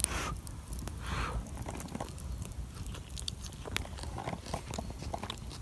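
A person sipping hot mushroom and goutweed soup, with two short slurps near the start and about a second in, then quiet chewing with small clicks.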